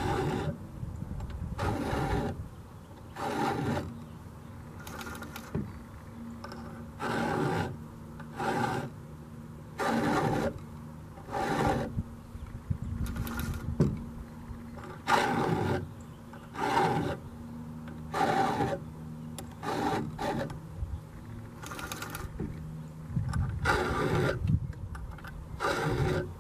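Round chainsaw file rasping across a chain cutter in a bar-mounted filing jig, one push stroke about every one and a half to two seconds, as the chain is sharpened for ripping.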